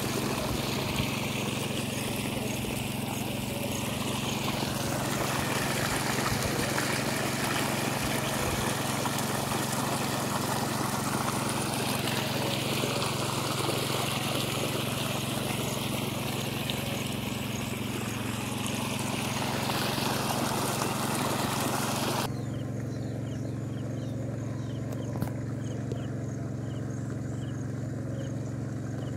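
A steady engine hum runs throughout under a loud rushing hiss. The hiss cuts off about 22 seconds in, leaving the hum.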